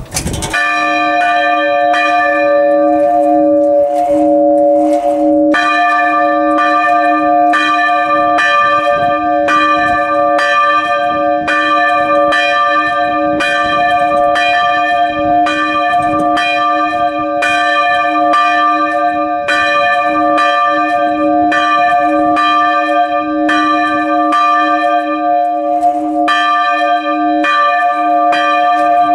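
Large bronze church bell swinging and ringing, heard close up from inside the belfry, with its clapper striking steadily a little more than once a second. The struck tones hum on between strikes, and more high overtones join about five seconds in.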